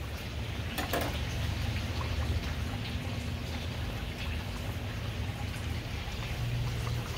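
Coarse salt pouring from a bag into a plastic pitcher of water, a steady pattering hiss like rain, with one sharp click about a second in.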